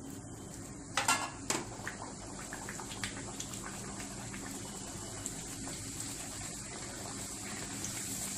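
Methi poori deep-frying in hot oil in a kadhai: two sharp bursts of sizzling about a second in as the rolled dough enters the oil, then steady bubbling and crackling as it fries.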